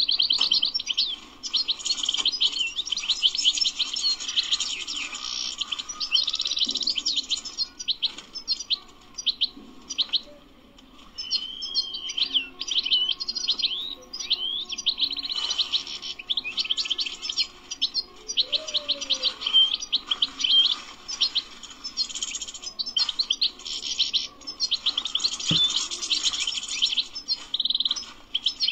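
European goldfinch singing: long runs of rapid, high twittering notes and trills, broken by a short pause about ten seconds in and picked up again with a few slurred whistles.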